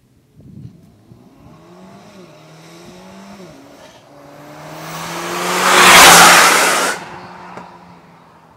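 Mercedes-AMG A45 (W176) with a Fi valvetronic cat-back exhaust, valves open, accelerating hard past at full throttle. Its 2.0-litre turbocharged four-cylinder climbs in pitch through the gears as it approaches, is loudest as it passes about six seconds in, then drops off sharply.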